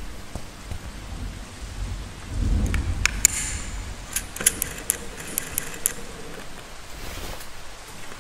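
Steady rain with a low rumble of thunder about two and a half seconds in. Between about three and six seconds, a string of sharp metallic clicks and clinks from a screw-gate carabiner and rope hardware being handled.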